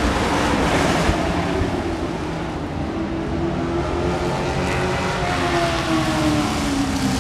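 Dirt-track racing truck engines running at speed, one truck passing close by. The engine note falls about five seconds in.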